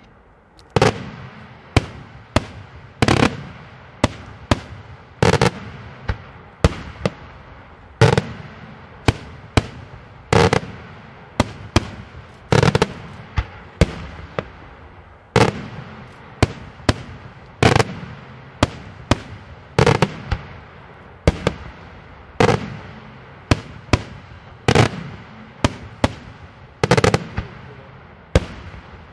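Daytime aerial fireworks shells bursting overhead in a continuous string of loud, sharp bangs, about one or two a second at uneven spacing, each trailing off in a short echo.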